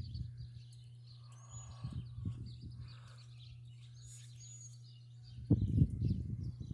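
Chickens calling softly from inside a coop, with short high chirps of small birds, over a steady low hum. About five and a half seconds in comes a brief burst of low thumps and rustling.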